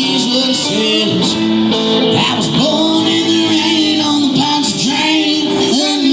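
Live country music: singing over acoustic guitar accompaniment, with held notes that bend and slide in pitch.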